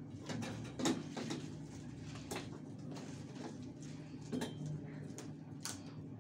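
Quiet room tone with a steady low hum and a few scattered light knocks and shuffles: a student getting up from a steel-framed chair and walking to the lectern.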